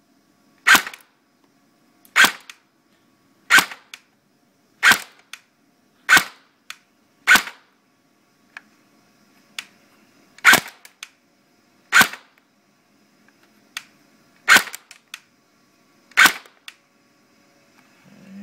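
S&T Tar-21 airsoft electric gun (AEG) firing single shots into a chronograph, ten in all, about one every second and a half with a pause of about three seconds midway. Each shot is a short sharp crack of the gearbox cycling and the BB leaving, clocking about 370 fps.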